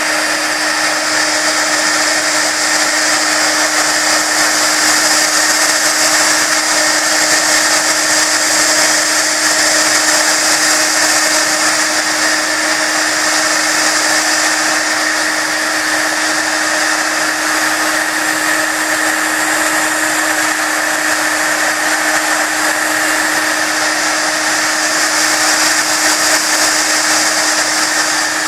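Embossing heat gun running steadily, a continuous blowing whir with a constant hum, as it melts clear embossing powder on a card.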